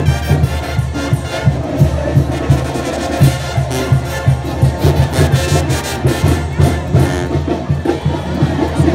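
Live brass band playing a dance tune, with a sousaphone bass pulsing on a steady beat under the horns.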